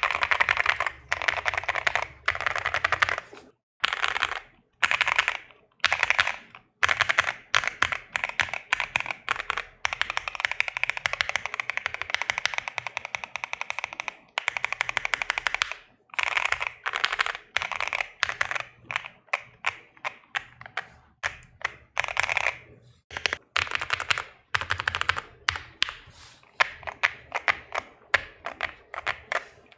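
Fast typing on a custom mechanical keyboard (Bakeneko60 with a POM plate and lubed linear switches): runs of rapid keystrokes broken by short pauses, with sparser single key presses near the end.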